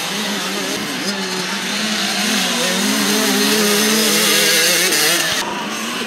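Motocross bike engines revving as the bikes ride by, their pitch rising and falling and climbing near the middle.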